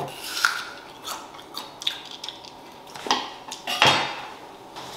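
Kitchen clatter: a knife, a cutting board and dishes knocking and clinking on the countertop, a string of separate short taps and clinks with a couple of louder knocks near the end.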